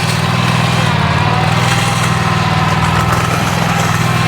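Concrete mixer truck's diesel engine running steadily at a constant speed.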